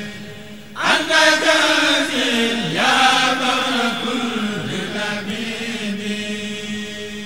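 Arabic religious poem (a Mouride khassida) chanted, the voice sliding between long held notes over a steady low held tone. A louder phrase starts about a second in after a brief dip.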